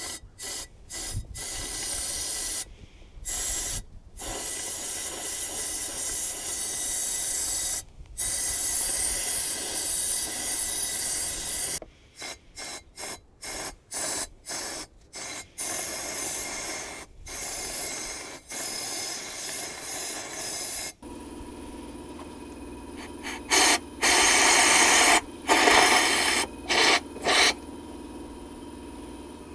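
Compressed-air blow gun hissing in repeated blasts into the open spark plug holes of an Audi 3.0T V6, blowing leftover B-12 and loosened carbon out of the cylinders after a piston soak. The blasts come in many stretches of varying length with short pauses, the loudest ones a few seconds before the end.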